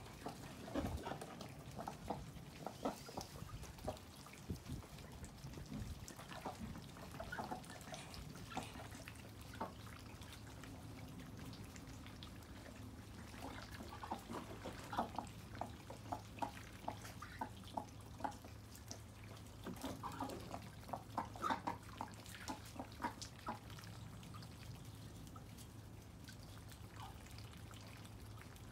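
Wet dripping and light splashing in rainwater, heard as clusters of quick small taps, with a faint steady low hum setting in about eight seconds in.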